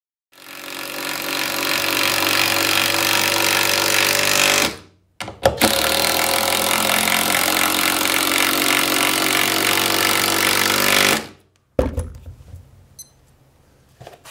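Makita BTD142 18-volt cordless impact driver hammering as it drives hex bolts into a double 2x8 plank: two long runs of steady rapid impacting, about four and six seconds, with a short pause between. A couple of knocks follow near the end.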